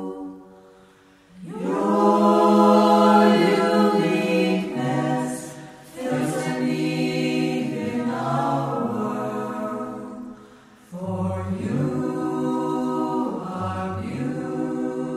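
Unaccompanied choir singing in long held phrases, with short breaks between phrases.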